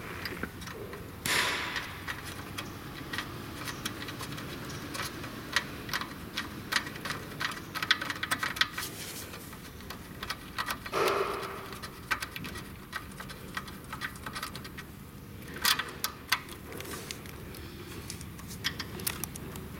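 Hands working the wiring and small plastic connectors in a treadmill's open motor compartment: many scattered light clicks and rustles, with a few louder scrapes, about a second in, about eleven seconds in and near sixteen seconds.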